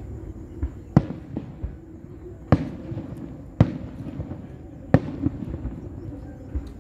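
Fireworks bursting: four loud, sharp bangs roughly one to one and a half seconds apart, with fainter pops between them.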